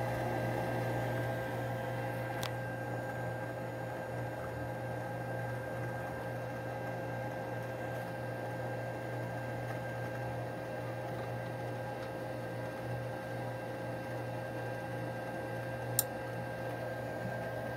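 Gas furnace's draft-inducer motor running with a steady hum during the start-up sequence. A sharp click comes about two and a half seconds in, and a louder one near the end.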